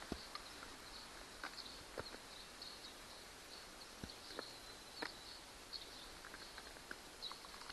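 Faint outdoor background of high chirping, broken by a few sharp light clicks from hands working the opened outboard remote-control box and its wiring.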